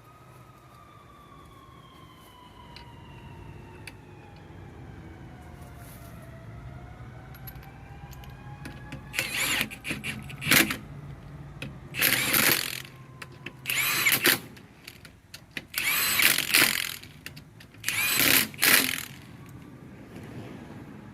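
A siren wails in the distance, its pitch sliding slowly down and back up. From about halfway in, an impact wrench runs in five short bursts a couple of seconds apart, spinning and tightening wheel lug nuts.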